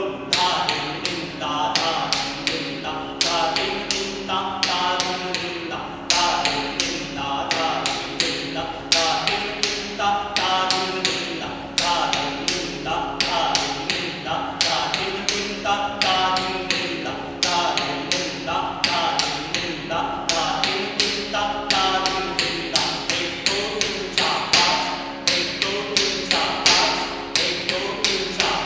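Kathak tatkar footwork: bare feet stamping on a wooden floor in quick, even strokes, several a second, with a steady tone and a repeating pitched figure beneath.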